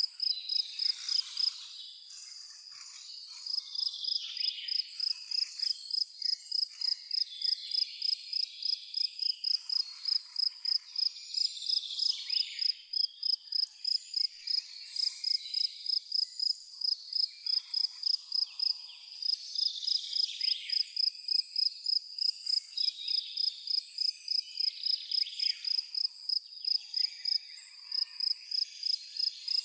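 A cricket chirping in a steady high-pitched pulse, about three chirps a second, pausing briefly about two seconds in, with faint scattered bird calls underneath.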